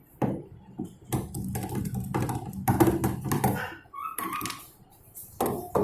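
Clicks, knocks and clatter of hand tools and plastic parts as a semi-automatic washing machine's base is unscrewed and taken apart, with a low steady hum under the first three seconds or so.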